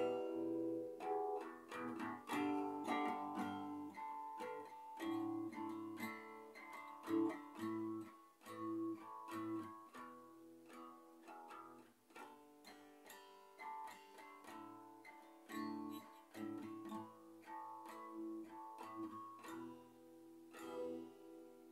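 Solo acoustic guitar playing the closing instrumental passage of a song, a stream of plucked notes and chords, getting quieter through the second half.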